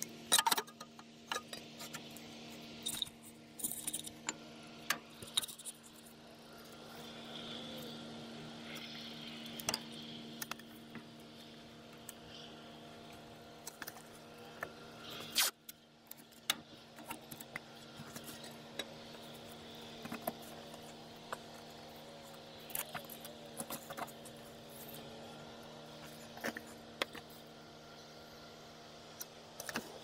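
Scattered light clicks, taps and scrapes of a glass pane and tape being handled and set into a metal cab frame, over a steady low hum.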